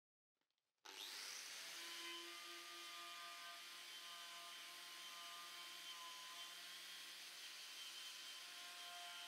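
Angle grinder with a wire cup brush, switched on about a second in and then running steadily as the brush scrubs old paint and rust off a sheet-steel lathe stand.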